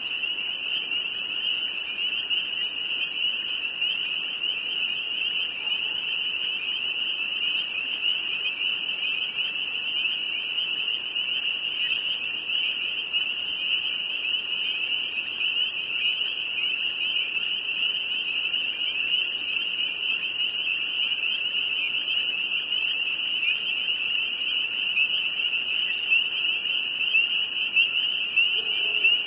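A dense chorus of spring peepers: many high-pitched rising peeps overlapping into one steady, unbroken sound.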